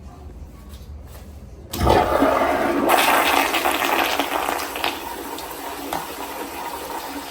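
Toto toilet flushing: after a quiet start, the flush comes on suddenly about two seconds in as a loud rush of water, then settles into a quieter swirl and refill.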